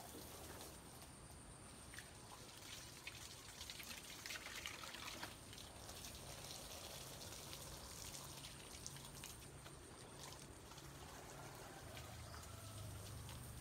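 Faint sound of water running from a garden hose, pouring and trickling with small splashes.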